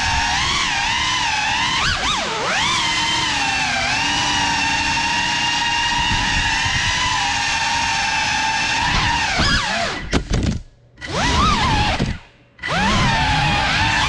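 GEPRC Cinelog 35 6S cinewhoop drone's motors and ducted propellers whining, the pitch rising and falling with the throttle. Twice near the end the sound drops almost away, then the motors spool back up.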